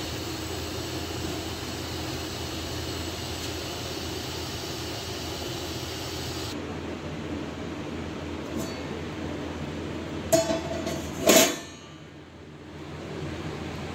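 Steady hiss and hum of a stove and cooking pot. A little past two-thirds through come a few sharp metallic clinks of cookware with brief ringing, the loudest of them just after the first.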